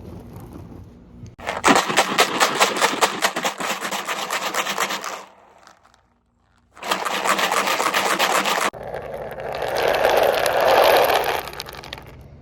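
Steel slingshot balls rattling rapidly against each other as they are shaken together to knock the loose dirt off, in two spells with a short pause between. Near the end a rushing noise swells up and fades.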